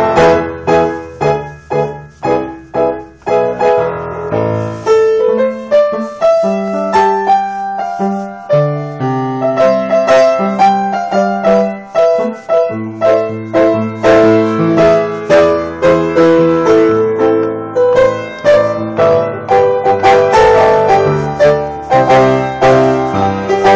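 Piano played solo, a steady run of chords over a moving bass line, with struck notes at an even pulse.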